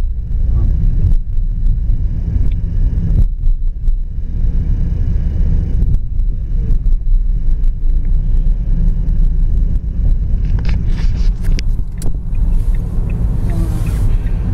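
Steady low road and engine rumble inside the cabin of a moving Ford car, with a few light clicks about ten seconds in.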